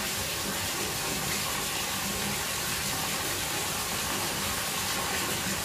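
Steady rush of running water in a fish pond, an even hiss with no change.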